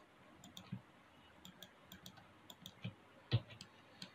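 Faint, irregular clicks of a computer mouse and keyboard, about a dozen scattered short clicks with one louder click a little over three seconds in.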